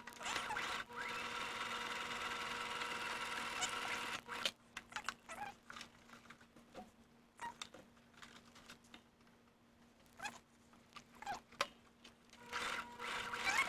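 Electric sewing machine running steadily for about four seconds, then stopping while the knit fabric is turned and handled with light rustles and clicks, and starting up again near the end.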